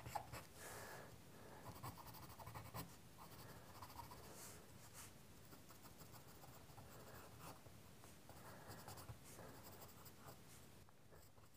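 Faint scratching of a graphite pencil shading on sketching paper, in short, irregular strokes.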